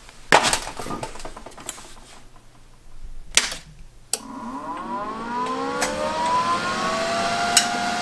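Titanium Unlimited 200 welder being switched on: a sharp click a little over three seconds in, then its cooling fan spins up with a rising whine that levels off into a steady hum.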